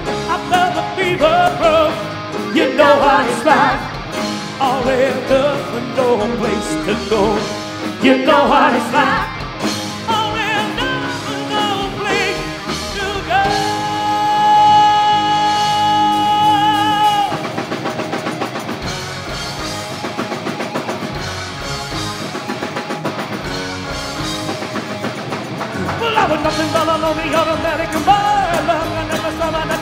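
Live rock band playing, with drums, bass and guitar under a male lead singer. About halfway through, one high note is held for about four seconds. The band then drops quieter for several seconds before the singing comes back near the end.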